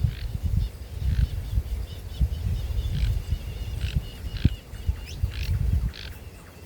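Small birds chirping with short, sharp calls every half second or so, over a loud, irregular low rumble.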